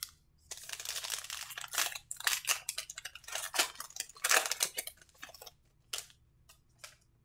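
Foil wrapper of a baseball trading-card pack being torn open and crumpled by hand, an uneven run of crackling rips for about five seconds, with one more short crinkle about six seconds in as the cards are slid out.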